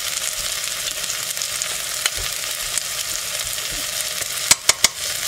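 Chopped onion and garlic sizzling steadily in olive oil in a stainless steel pot. A few sharp clicks near the end come from a metal spoon knocking against the pot.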